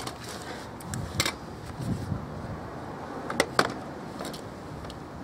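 Handling noises: a few short clicks and knocks over a steady background, the loudest a close pair past the middle.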